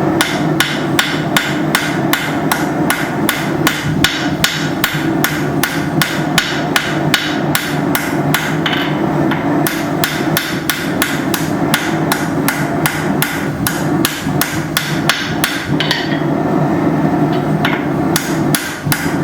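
Hammer blows on hot steel on an anvil, tapering the end of a bar, struck evenly at about three a second, with a short pause about sixteen seconds in before a few more blows. A steady low hum runs underneath.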